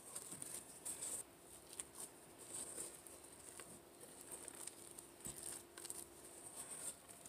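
Faint soft scraping and squishing of a silicone spatula folding whipped topping into a thick peanut butter and cream cheese mixture in a stainless steel mixing bowl, with light, irregular ticks as the spatula meets the bowl.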